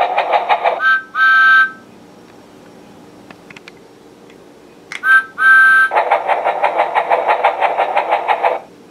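Electronic sound effects from a My First Thomas Project and Play Thomas toy engine: a rapid steam-train chuffing, about six beats a second, stops just under a second in with two two-note whistle toots. After a quiet gap the whistle toots twice again about five seconds in and the chuffing starts up until just before the end.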